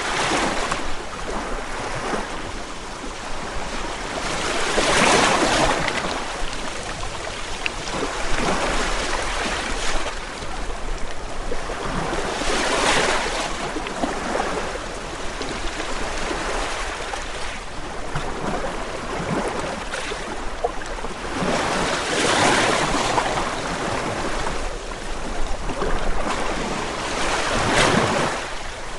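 Ocean surf: a continuous wash of water with waves breaking and swelling louder every several seconds.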